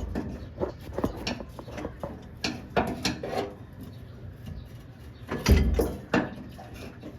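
Hand tools and metal fittings knocking and clicking while a Suzuki Multicab's fuel tank is being unbolted and lowered, with a heavier thump about five and a half seconds in.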